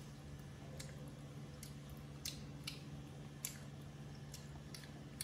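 Faint scattered clicks and smacks of baby monkeys chewing pieces of grilled meat, at irregular intervals, over a low steady hum.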